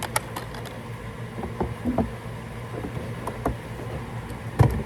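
Handling noise: scattered light clicks and knocks over a steady low hum, with a louder knock near the end.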